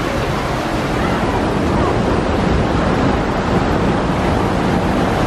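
Steady rush of churning water on a river rapids ride.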